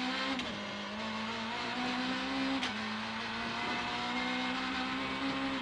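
Citroën C2 R2 Max rally car's engine at full throttle, heard from inside the cockpit, accelerating down a straight. The pitch climbs and drops twice with quick upshifts, about half a second in and again just under halfway, the second with a click, then climbs slowly again.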